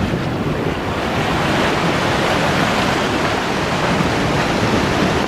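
Waves washing against the shore with wind buffeting the microphone: a steady rushing noise that swells a little midway.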